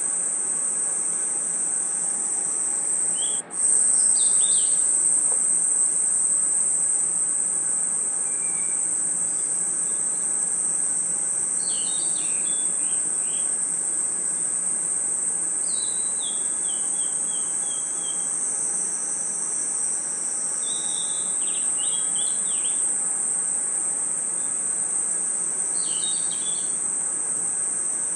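Steady, high-pitched night chorus of crickets and other insects, with short clusters of bird-like chirps every few seconds. The whole sound drops out for a split second about three and a half seconds in.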